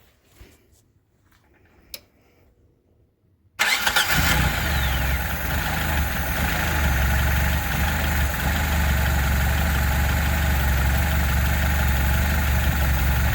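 A single click, then the rebuilt VAZ 2106 carburetted four-cylinder engine suddenly running loud and steady from about three and a half seconds in. This is its first start after a rebuild, once the distributor has been turned 180° to cure backfiring.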